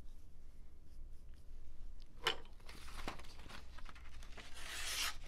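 A kiridashi knife blade slicing through a sheet of paper: a dry rustling hiss that builds over the last couple of seconds, slicing right through as a sharp edge should. A single sharp tap comes a little over two seconds in.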